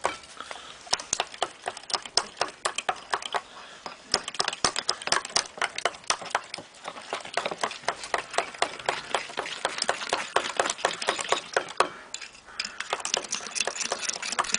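Teaspoons beating egg yolks and sugar into kogel-mogel in a glass and a mug, making rapid, continuous clinks of metal against the sides. The clinking pauses briefly about twelve seconds in, then picks up again.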